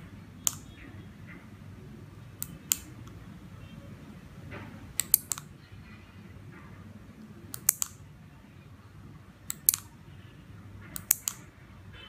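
Sharp clicks in small groups of one to three, about every two seconds: the plastic buttons of a 433 MHz key-fob remote being pressed and the 12 V receiver's relay clicking as it switches the LED on and off.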